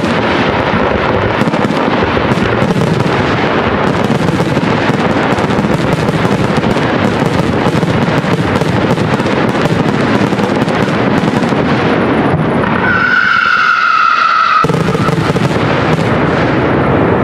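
Aerial fireworks shells bursting in a dense, continuous barrage of bangs and crackling. Near the end a high whistling tone stands out for about two seconds.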